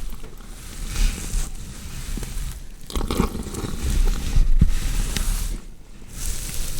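Horror foley of a body being dissected: wet squishing and cutting of flesh in irregular strokes, with small clicks, each stroke a second or so long with brief pauses between.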